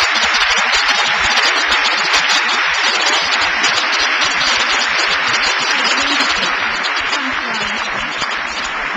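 A large audience applauding steadily, easing off a little near the end.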